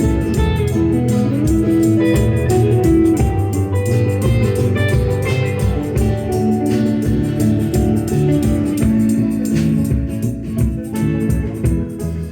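Live band playing an instrumental passage of a bluesy song, led by guitar, with a sliding note about a second and a half in.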